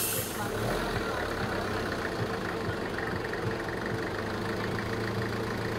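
A vehicle engine idling steadily with a low, even hum.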